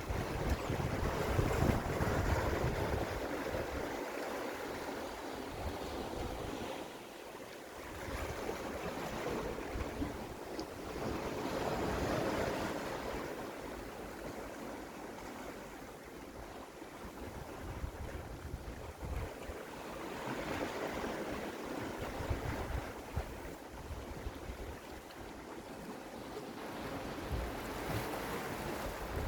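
Sea waves washing against shore rocks, the surf swelling and easing every several seconds, with wind buffeting the microphone in low rumbling gusts.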